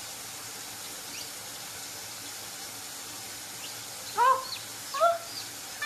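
Steady hiss of a running water tap left on to raise the room's humidity. From about four seconds in, two or three short, high calls that rise and fall in pitch and stand well above the hiss.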